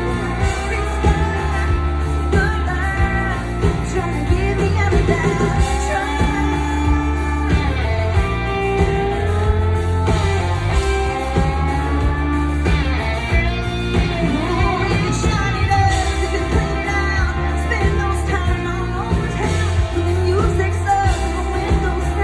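Live country song with a female lead vocal over a full band: electric and acoustic guitars, drums and keyboards, heard from within the crowd.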